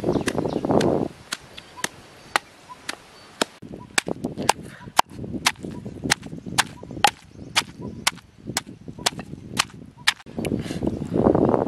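Wooden pestle pounding lemongrass and chilli in a wooden mortar: a steady run of sharp wooden knocks, about two to three a second. Louder rushing noise at the start and again near the end.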